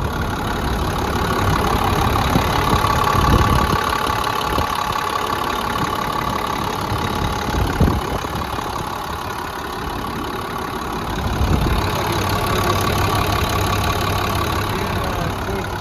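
International DT466 inline-six diesel engine idling steadily with a light diesel clatter, sounding healthy. A brief thump is heard about halfway through.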